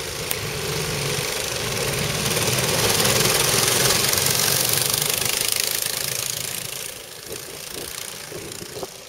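A pack of go-karts accelerating away from the race start and passing close by, their engines swelling to a peak about three to five seconds in, then fading as they pull away round the track.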